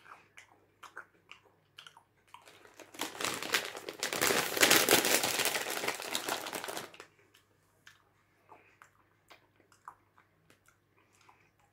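Popcorn bag crinkling loudly for about four seconds as it is handled, with small chewing clicks of popcorn being eaten before and after.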